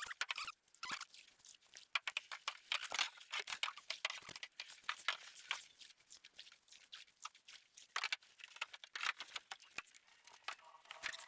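Faint, irregular crackling and clicking, many small sharp ticks in quick uneven succession.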